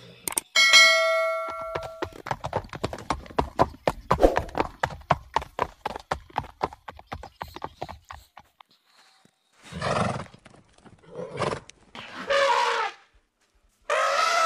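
A bell-like ding rings for about a second and a half, as from an animated subscribe-button bell, followed by a run of horse hoofbeats clip-clopping at a steady pace. Near the end come three or four short animal calls.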